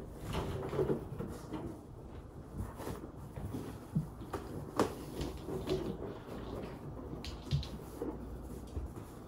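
Inflated rubber balloons bumping and rubbing as a rabbit pushes them about on carpet: irregular soft thumps and knocks, a few sharper ones in the middle and one more later.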